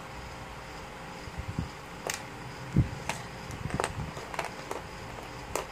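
Small plastic Lego pieces clicking and tapping as they are handled and pressed together, with a few soft knocks on the tabletop, at irregular moments.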